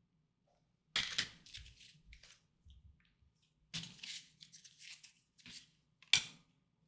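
Tarot cards being handled: papery rustling and sliding in several short bursts, with a sharper card snap near the end.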